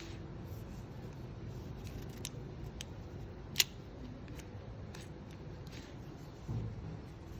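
Scattered light clicks of something small being handled, with one sharp click about three and a half seconds in and a soft knock near the end, over a steady low hum.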